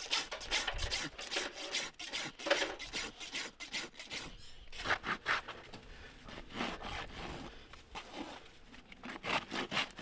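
Farrier's rasp scraping across a horse's hoof in repeated strokes, dressing the foot.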